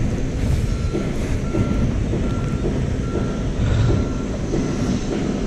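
A warning beeper like a vehicle's reversing alarm, sounding a steady series of short beeps at one pitch, about one every 0.7 s. It plays over a steady low rumble.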